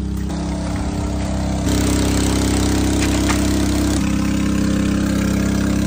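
Engine of a water pump running steadily, draining the pool; it gets louder abruptly about two seconds in and changes again about four seconds in.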